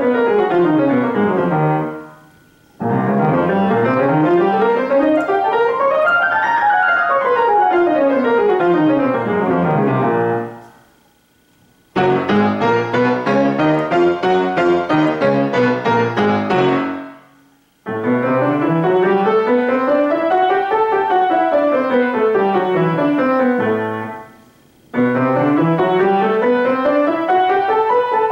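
Grand piano scales played with both hands together, each run climbing several octaves and coming back down, with short pauses between them. One run in the middle is played as evenly pulsed notes rather than a smooth line.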